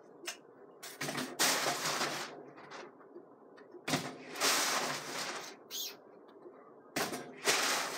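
Rustling and scraping from hands working among wooden ceiling joists, in four bursts of about a second each, some starting with a sharp click.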